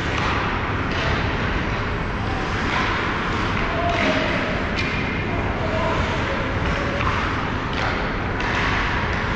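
Ice hockey rink sound during play: a steady low rumble of the arena with several sharp clacks of sticks and puck on the ice, and short shouts from players.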